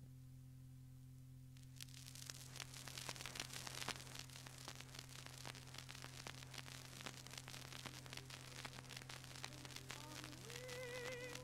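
Faint crackle, clicks and hiss of an old recording of a 1930s radio broadcast over a steady low hum; the crackle starts about two seconds in. Near the end, music enters with a held note that wavers in vibrato.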